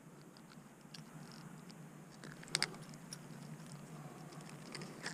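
Faint handling noises while a small hooked redfish is unhooked: scattered small clicks and rustles, with a sharper clicking about two and a half seconds in and another near the end.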